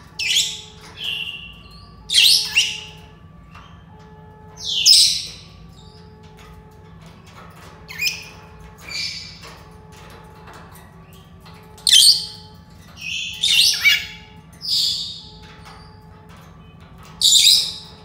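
Senegal parrots whistling and squawking: about a dozen short, high-pitched calls with pauses of one to three seconds between them.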